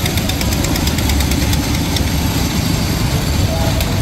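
Small engine driving a fairground dragon coaster train, running steadily, with a fast light clicking over the rumble from the cars on the track.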